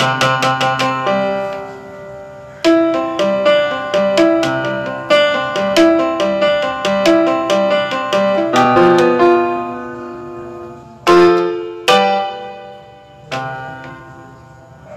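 Casio portable electronic keyboard played with both hands in a piano-like voice: a quick run of notes, then a melody of notes about twice a second, and two loud chords near the end that ring away. The keyboard has just been repaired, and every played key sounds.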